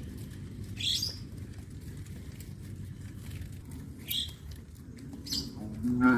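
Small birds chirping briefly three times over low steady outdoor background noise, then a cow begins to moo just before the end.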